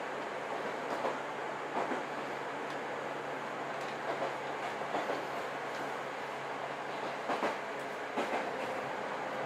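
Chichibu Railway 6000 series electric train running, heard from inside the passenger car: a steady rumble with the wheels clicking over rail joints in pairs, roughly once a second.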